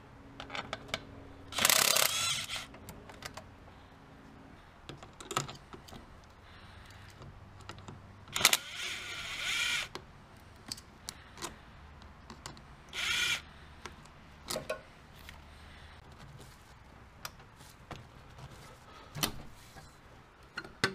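Kobalt 24V brushless 3/8-inch cordless impact wrench running in three short bursts, the first and second each about a second long, undoing the bolts that hold the turbo hot pipe. Scattered clicks and clanks of the socket and metal parts come between the bursts.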